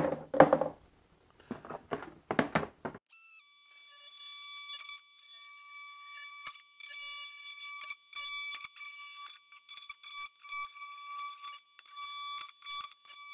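Milwaukee cordless rotary tool starting about three seconds in and running at a steady high-pitched whine, with faint scratching as the bit cuts into the plastic wall of the Packout crate. A few short knocks of handling come before it starts.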